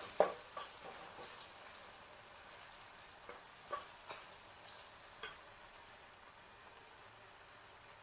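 Tomato and spice masala sizzling in oil in a pan on medium heat, frying until the oil separates. A spoon scrapes and knocks against the pan a few times in the first five seconds.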